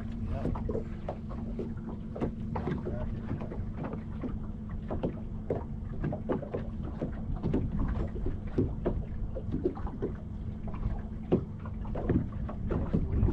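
Small waves lapping and slapping irregularly against a fishing boat's hull, over a steady low motor hum.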